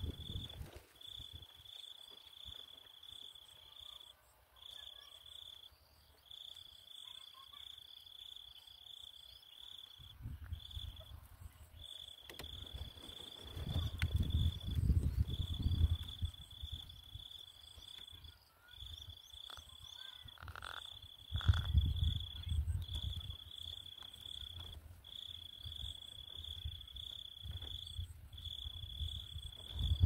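An insect trills steadily at one high pitch, in long stretches broken by short gaps, with bouts of low rumble now and then.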